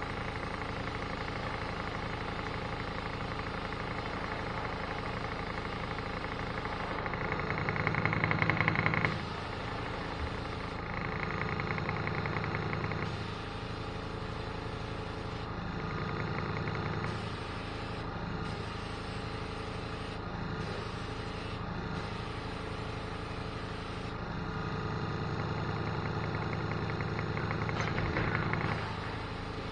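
Small electric air compressor running steadily with a knocking motor hum, getting louder in several stretches of two to four seconds.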